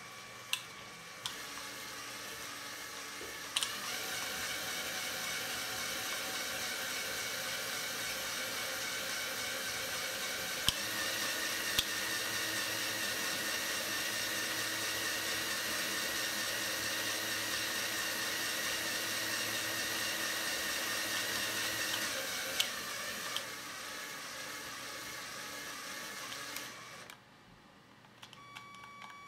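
Small electric motor and plastic Lego gearing whirring as a Lego model steam locomotive's wheels and motion turn on a roller test bench: a steady whine that steps louder about three seconds in, rises in pitch about eleven seconds in, drops back about twenty-two seconds in and dies away near the end, with sharp clicks at each change of speed.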